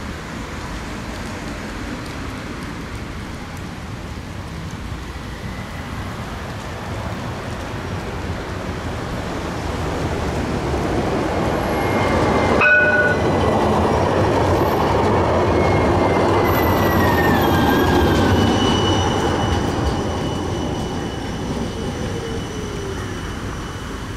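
Siemens Avanto tram-train passing on grass-covered track: its rolling noise swells to a peak and fades again. Near the middle comes a single sharp click, then high whining tones, one of them falling in pitch.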